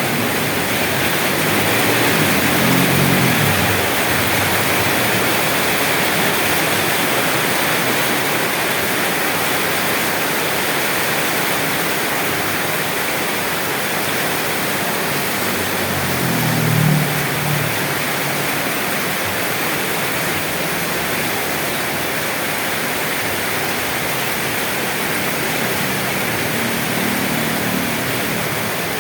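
Steady rain, a dense even hiss, with a few brief low rumbles; the strongest comes about two thirds of the way through.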